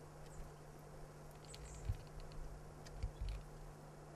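A Columbia black-tailed deer chewing and licking peanut butter at close range: faint wet clicks and smacks, with a couple of low thumps about two and three seconds in.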